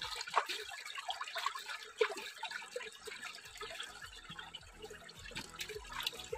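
Water splashing and trickling as a large fish is rinsed by hand in shallow water over rock, with irregular small splashes and drips.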